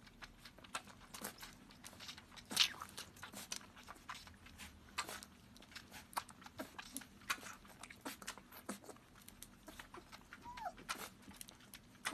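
A puppy suckling milk from a baby bottle: faint, irregular wet sucking and smacking clicks, with one brief falling squeak near the end.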